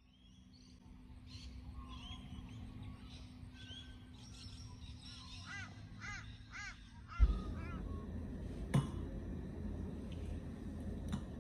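Birds calling outdoors: assorted chirps, then a run of four loud arching calls about five to seven seconds in. Then the sound switches to indoor room tone, with one sharp knock about a second and a half after the switch.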